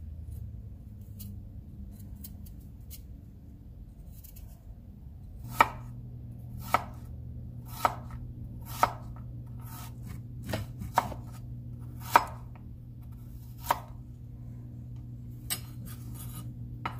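Chef's knife slicing fresh ginger into strips on a wooden cutting board. After a few faint small clicks, sharp knocks of the blade on the board begin about five seconds in, roughly one a second, a dozen in all.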